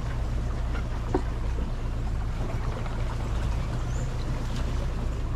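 Boat motor running steadily, a low even hum.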